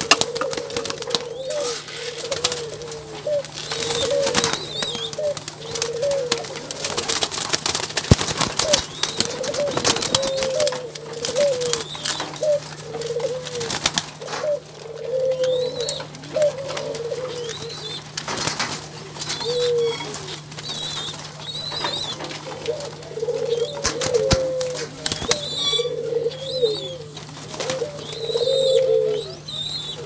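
Domestic ringneck doves (burung puter) cooing over and over in short repeated calls. Many sharp clicks of beaks pecking dried corn from a plastic cup and some wing flutters run through it, over a steady low hum.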